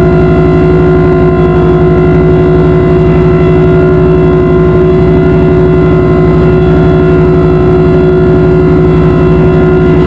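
Live noise-music performance: a loud, steady electronic drone of several held tones over a fast buzzing low pulse.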